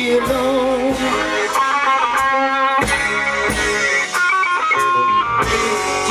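Rock band playing: an electric guitar picks a lead melody of single notes over a drum kit.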